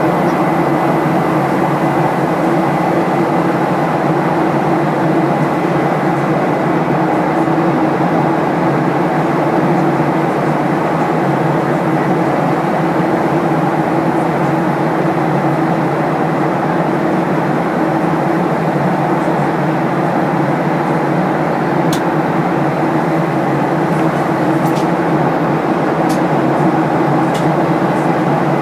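Steady cabin noise inside a Boeing 737-800: an even rumble of its CFM56 jet engines and passing air, with a few faint clicks near the end.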